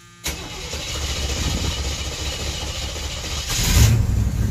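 1980 Chevy K10 pickup's engine starting from cold: the starter cranks for about three seconds, then the engine catches with a sudden louder surge and keeps running. The start is way better, a sign that the new fuel pump has cured the long cranking.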